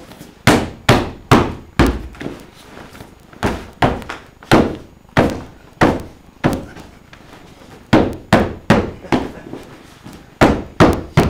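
Ground-and-pound punches landing on a padded vinyl grappling bag on the floor: about twenty sharp, heavy thuds in uneven flurries of two to four, with short gaps between them.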